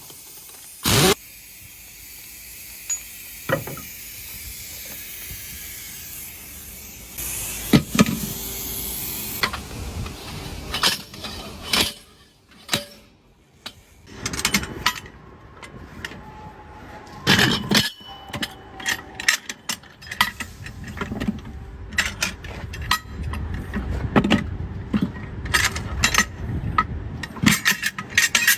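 Truck tire repair work: a steady hiss with a few knocks for about the first nine seconds, then a long run of uneven metallic clanks and knocks from tools on the tire and wheel.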